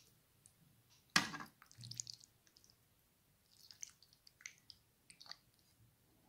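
Metal spoon scooping and lifting saucy tagliatelle with meatballs in a frying pan: soft wet squishing sounds, with one louder knock about a second in.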